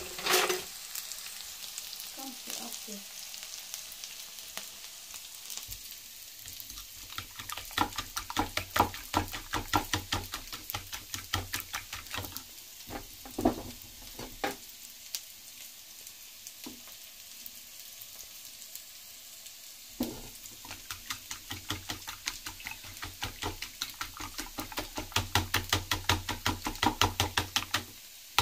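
Diced potatoes, onion and carrot sizzling in oil in a frying pan. Then eggs with chopped tomato are beaten with a fork in a bowl: rapid, even clicking of the fork against the bowl, in two long runs with a quieter pause between.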